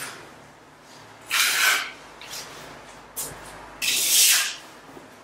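Notched steel trowel scraping through tile adhesive on a concrete floor: two rasping strokes about a second and a half and four seconds in, with a brief scrape just after three seconds.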